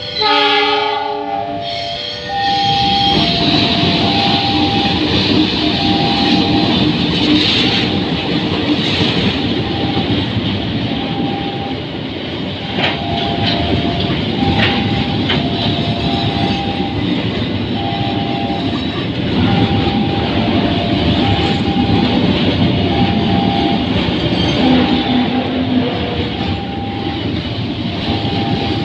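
CC 206 diesel-electric locomotive sounds its horn for about two seconds. Then a freight train of flat wagons loaded with rails runs past, with steady rumble and occasional clanks of wheels over the rail joints. Throughout, a level-crossing warning signal rings a two-tone alternating chime.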